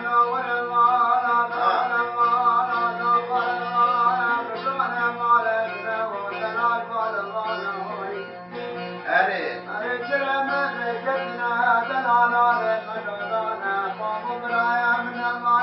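A man sings a folk song while playing a bağlama (long-necked saz lute). The plucked strings keep a steady low drone under the melody.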